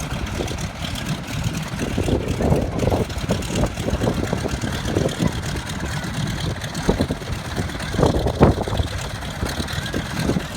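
An engine idling steadily, with faint voices in the background.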